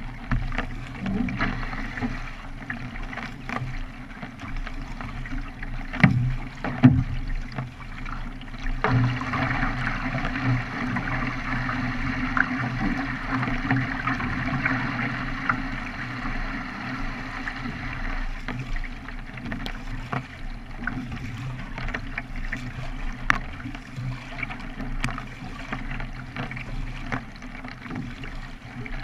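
A K1 racing kayak being paddled: steady splashing and water rushing past the hull, with scattered sharp knocks, the loudest two about six and seven seconds in.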